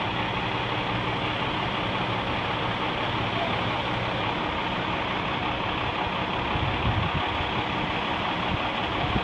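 An engine running steadily, a low hum under a broad hiss, with some irregular low bumps in the last few seconds.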